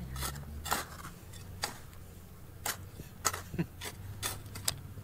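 Sharp knocks and clicks at irregular intervals, about seven of them: a metal digging tool striking hard stone.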